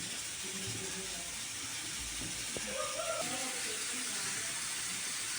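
Steady hiss of food frying in a pan, with a brief faint pitched sound about three seconds in.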